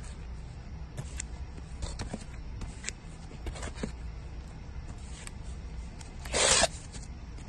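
Vinyl LP sleeves being flipped through by hand in a record bin: light taps and clicks of cardboard and plastic sleeves knocking together, with one louder, short rustle about six seconds in, over a low steady rumble.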